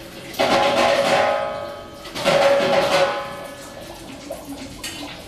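Noise Barrels sound-art instrument played in performance: two sudden swells of hissing noise, each with a ringing pitched tone inside it. The first comes about half a second in and the second about two seconds later, and each dies away over a second or so. A softer rustle follows.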